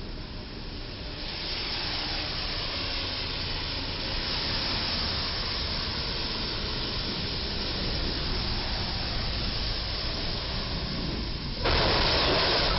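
Traffic on a rain-soaked road: a steady hiss of tyres spraying through water, growing louder about a second in and jumping louder again a second before the end.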